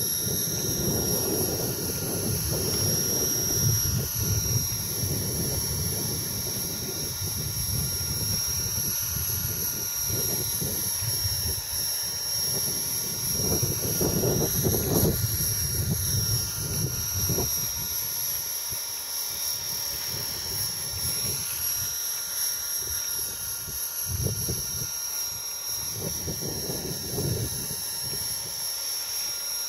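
T-Rex 450 electric model helicopter hovering: a steady high-pitched whine from its motor, gears and rotor, wavering slightly in pitch. Strong wind buffets the microphone in gusts, heaviest in the first half.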